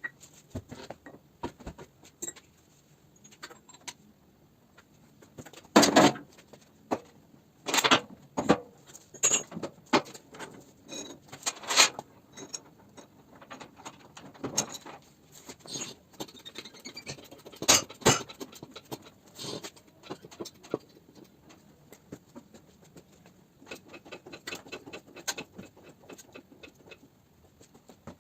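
Irregular metallic clinks and knocks of tools and parts being handled, with a few louder strikes scattered through.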